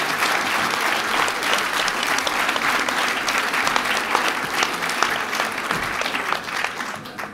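Audience applauding: a roomful of hands clapping steadily, stopping near the end.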